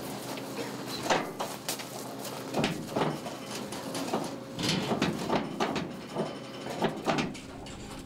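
Steel cattle-handling gates and panels clanking and knocking: a string of sharp metallic bangs, a second or two apart, over a faint steady hum.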